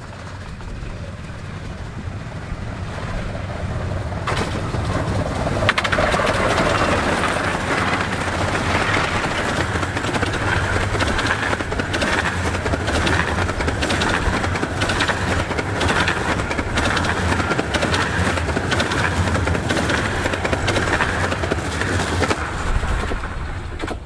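A one-third-scale, 15-inch-gauge Romney, Hythe & Dymchurch Railway steam locomotive and its train running past at speed, with a rapid clatter of wheels over the track. It builds over the first six seconds, stays loud, then fades near the end.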